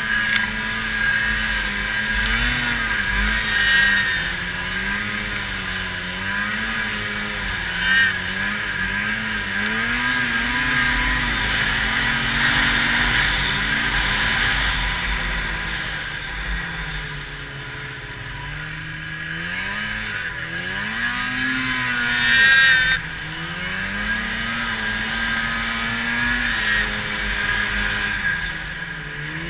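Arctic Cat 700 snowmobile's two-stroke twin engine under load in deep powder, its pitch rising and falling constantly as the throttle is worked, over a steady rush of wind and snow. A louder burst comes about 22 seconds in.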